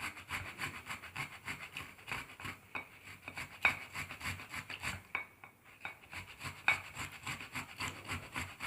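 Half a tomato being grated by hand on a kitchen grater: repeated rasping strokes, several a second.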